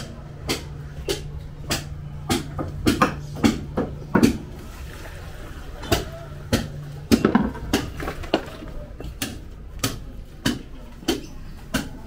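Footsteps of someone walking at a steady pace, a little under two steps a second, over a steady low hum that stops a little past halfway through.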